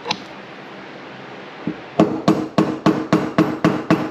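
Hammer striking a brass punch to drive a steel roll pin into an RB26 individual throttle body: one tap just after the start, then, about two seconds in, a quick even run of about nine strikes, three to four a second, as the pin is driven home.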